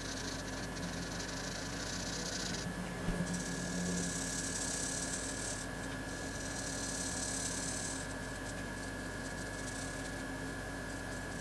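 Jumbo felt-tip marker scribbling back and forth on paper in several stretches of quick strokes, over a faint steady hum.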